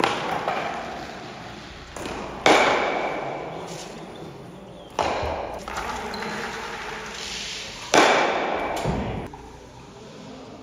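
Curling-like sport stocks (Eisstöcke) thrown on a hard hall floor: four loud knocks, about two to three seconds apart, each followed by a sliding rush that fades over about two seconds.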